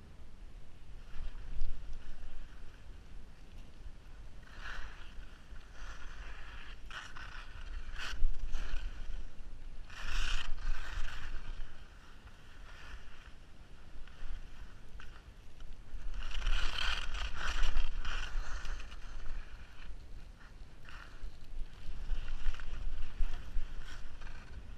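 Skis scraping and hissing over packed snow in irregular bursts as they turn, the longest a couple of seconds long about two-thirds of the way in, over a steady low rumble of wind on the microphone.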